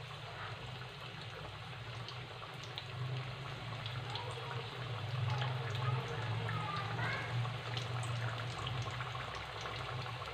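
Chicken-and-potato pinwheels deep-frying in hot oil in a kadai: a steady sizzle with many small crackles, growing a little louder as more pieces are dropped in. A low steady hum runs underneath.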